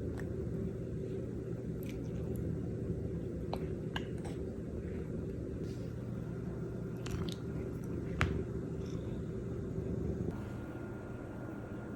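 A steady low hum with scattered soft clicks and ticks. About ten seconds in the hum changes and a faint high steady tone starts.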